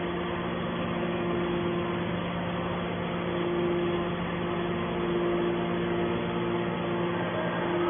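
Hydraulic scrap metal baler's motor and pump running with a steady hum.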